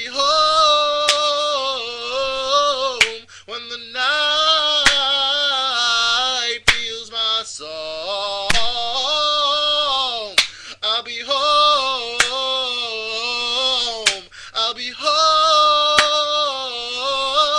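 A singer holding long wordless notes that slide gently up and down in pitch, pausing briefly for breath between phrases. A sharp click sounds about every two seconds in a slow, steady beat.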